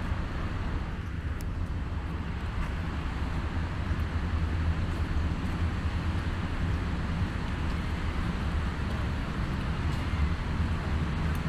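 Steady city street traffic noise with a low rumble.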